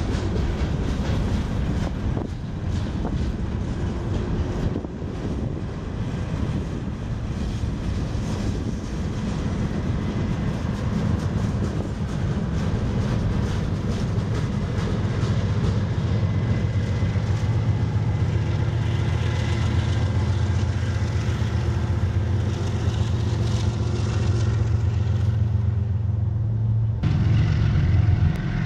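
Freight train of lumber flatcars rolling past with steady wheel-on-rail rumble, then, from about halfway, the steady low drone of diesel locomotive engines as a trailing set of Union Pacific locomotives goes by. The sound changes abruptly near the end.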